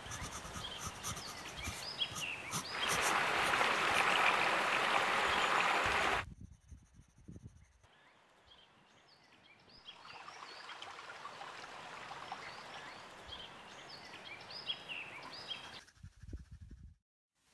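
A pencil scratching and shading on sketch paper, loudest for a few seconds before it stops abruptly, with small birds chirping throughout.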